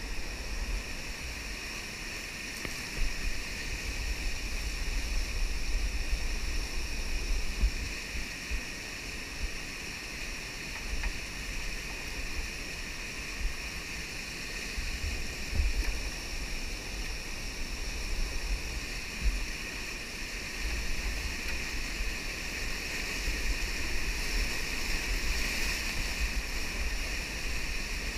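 Steady rush of whitewater rapids, with occasional low thumps.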